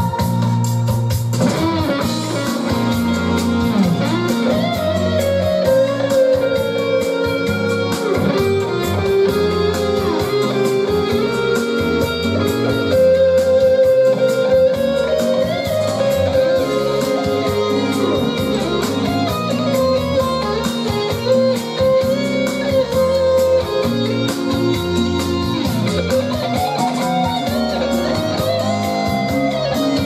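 Instrumental music led by an electric guitar, its lead line bending in pitch over a steady bass accompaniment, played back through the Nobsound Mini Bluetooth amplifier and a pair of bookshelf speakers.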